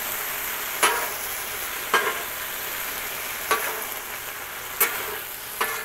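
Chicken in tomato sauce sizzling on a Blackstone steel flat-top griddle, with a metal spatula scraping and clacking on the griddle plate five times, about once a second.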